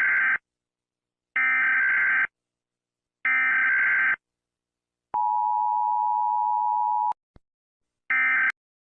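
Emergency Alert System tones: three screeching data bursts of the SAME header, then a steady two-second dual-tone attention signal, then a shorter data burst near the end. These tones announce a new alert message.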